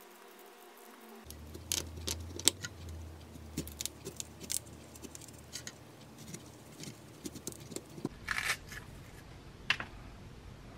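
Small kitchen knife peeling and cutting into a ripe peach: scattered small clicks and scrapes of the blade, with a few louder clicks near the end as the flesh is worked off the stone.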